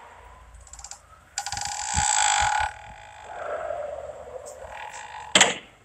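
Wooden door creaking open, with a few soft thuds, then a sharp click near the end.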